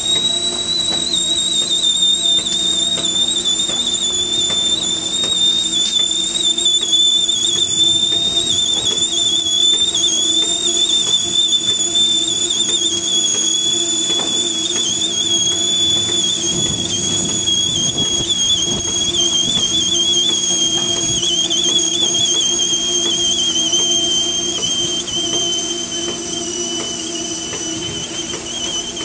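Norfolk & Western 611 J Class 4-8-4 steam locomotive standing under steam, giving off a steady, high-pitched, slightly wavering whistling whine that slowly sinks in pitch. A low steady hum runs beneath it.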